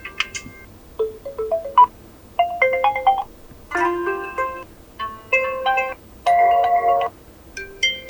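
Oppo F21 Pro 5G alarm tones playing through the phone's loudspeaker: short, bright melodic chime phrases of a few notes each, roughly one a second, with brief gaps between them.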